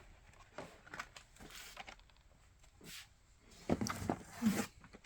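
Faint rustling and clicking of carded Hot Wheels die-cast cars being handled and pulled out of their cardboard shipping case, with a few louder knocks and rustles about four seconds in.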